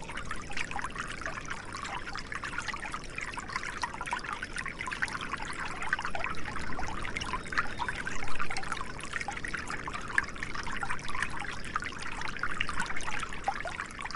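Small stream trickling and splashing over rocks, a steady babble of water.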